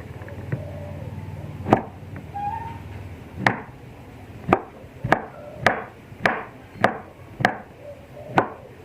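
Knife chopping food on a cutting board: about nine sharp strokes, a few spaced out at first, then coming steadily a little over half a second apart.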